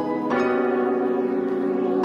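Background music: soft plucked-string, harp-like notes over sustained chords, with a new chord entering shortly after the start.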